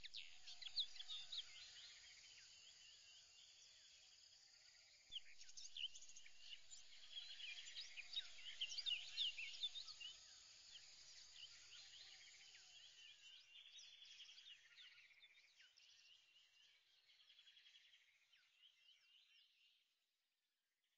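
Faint birdsong: many short high chirps and trills from several birds, louder from about five seconds in and fading out near the end.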